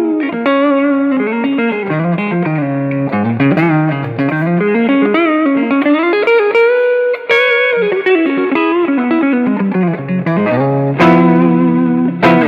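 Westcreek Helios electric guitar played on its neck pickup through an amp: single-note melodic runs that climb and fall, then two strummed chords near the end.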